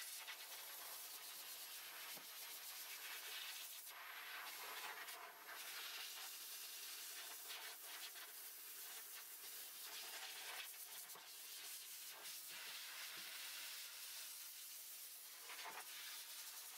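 Faint, steady rushing hiss of a high-velocity dog dryer blowing air through a German Shepherd's thick double coat to push out loose undercoat, with a low hum beneath it.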